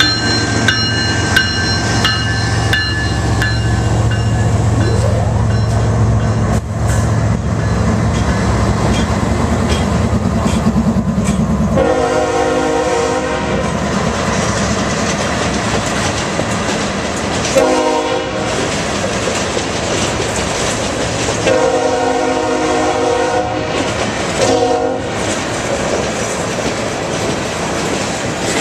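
Freight train passing close by: the diesel locomotives' engines hum heavily for the first dozen seconds, with a bell ringing during the first few seconds, then the freight cars roll past with wheel clickety-clack. A locomotive horn sounds four blasts, long, short, long, short, starting about twelve seconds in.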